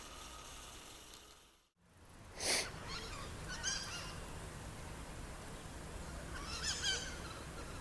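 A bird gives two short bursts of chattering calls about three seconds apart, over faint outdoor background. A brief rustling bump, louder than the calls, comes a little before the first of them.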